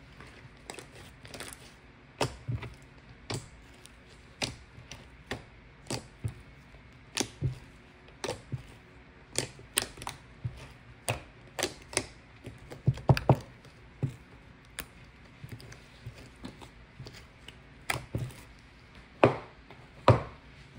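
A run of short, sharp clicks and taps coming irregularly, about one or two a second, with a quick flurry about thirteen seconds in and a sparser stretch after it.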